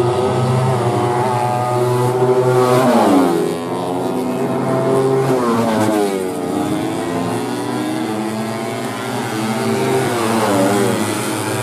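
150cc four-stroke underbone racing motorcycles running hard at high revs; the engine pitch drops sharply about three seconds in and again about six seconds in.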